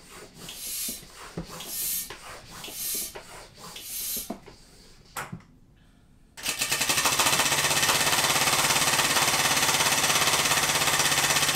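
A hand-powered air pump pushing air into a tank in about six even strokes, each a short hiss. About six seconds in, a 3D-printed compressed-air engine starts and runs with a fast, steady clatter.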